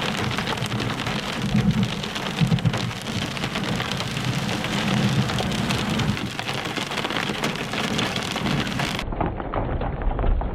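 Heavy rain pattering densely on a surface in a thunderstorm, with low rumbles of thunder swelling a couple of times. About nine seconds in, an edit switches to a duller, more muffled recording of the rain.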